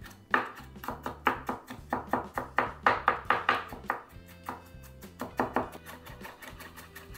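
Quick, repeated knife strikes on a cutting board as a chef's knife finely minces garlic, fewer strikes in the second half. Background music with a steady low bass line runs underneath.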